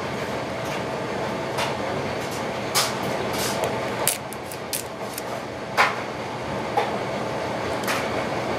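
Steady background noise with a scattering of short clicks and taps, about eight of them, from a glass globe and paintbrush being handled.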